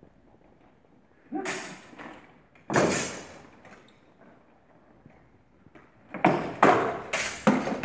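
Sword blows and clattering armour during a sparring exchange, with stamping footwork: a sharp hit about a second and a half in, a longer clash about three seconds in, then a quick flurry of several hits near the end.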